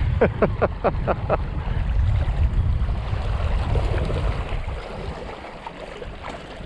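Wind buffeting the microphone, a heavy low rumble that eases after about five seconds. Near the start comes a quick run of about six short chirps, each falling in pitch.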